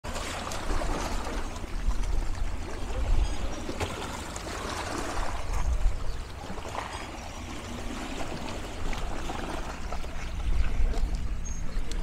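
Small sea waves lapping and splashing against rocks at the water's edge, swelling and easing every second or two, over a steady low rumble.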